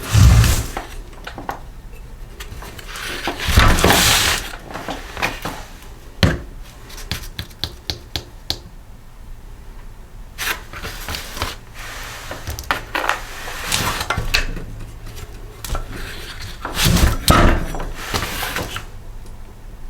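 Metal parts and hand tools handled while a small snowblower engine is taken apart: scattered clicks and clinks, with three heavier thumps near the start, about four seconds in and about seventeen seconds in.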